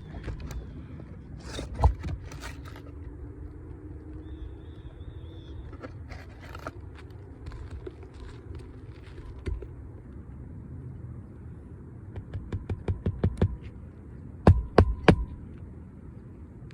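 Hammer strikes on a roof while fitting a replacement asphalt shingle: scattered knocks and scraping, then near the end a quick run of light taps followed by three hard blows, the pattern of nailing the shingle down.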